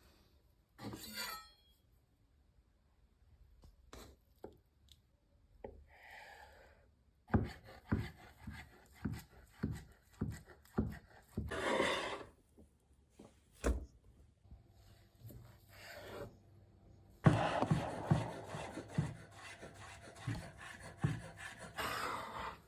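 Knife chopping food on a cutting board in quick runs of short knocks, with brief scraping and rustling between the runs.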